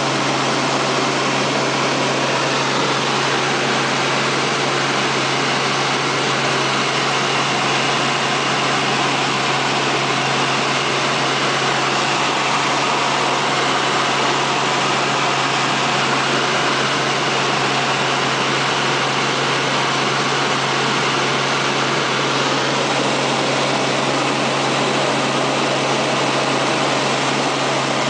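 Helicopter in flight heard from inside the cabin: a steady engine and rotor drone with a constant low hum, unchanging throughout.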